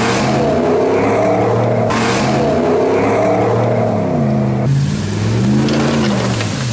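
Ram pickup truck engines running hard and revving, their pitch rising and falling, in clips cut together with abrupt changes about two seconds in and again near five seconds.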